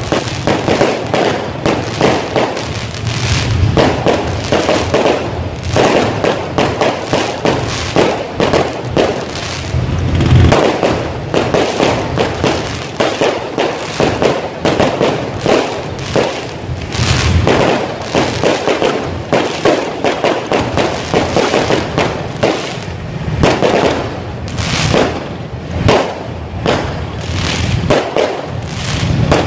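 Aerial fireworks going off in quick succession: a continuous run of bangs and crackling from bursting shells.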